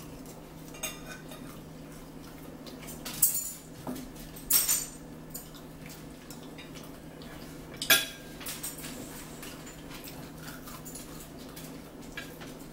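Forks clinking and scraping on dinner plates while people eat. There are a few sharp clinks, at about three, four and a half and eight seconds in, and the one near eight seconds is the loudest. A steady low hum runs underneath.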